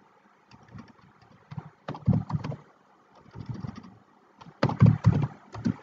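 Computer keyboard typing: irregular runs of short key taps as a typo is deleted and the word retyped, the loudest and quickest run near the end.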